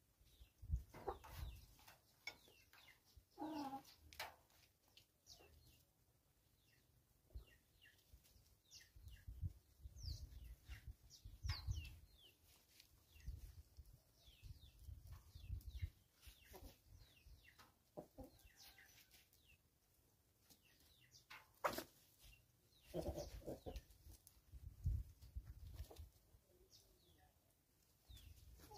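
Chickens clucking softly now and then while foraging, with scattered faint clicks and low rumbles.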